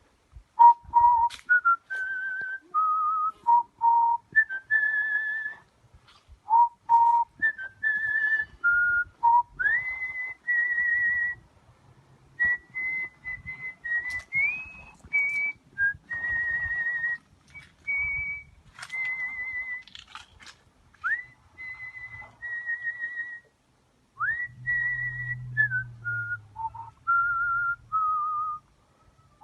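Solo artistic whistling of a melody: one clear, pure tone in short phrases with vibrato on the held notes, sometimes sliding up into a note, with no accompaniment.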